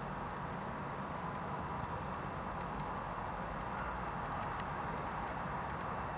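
Steady low background hum of outdoor ambience, with a scatter of faint ticks.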